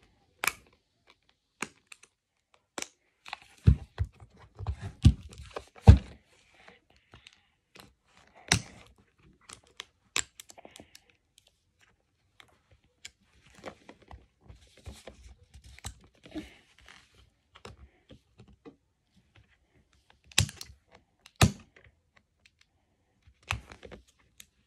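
Handling of a hard plastic Puppycorn Surprise toy egg as fingers pick and pry at its shell: scattered sharp clicks, taps and small scratches, with a cluster of heavier knocks about four to six seconds in and two more about twenty seconds in.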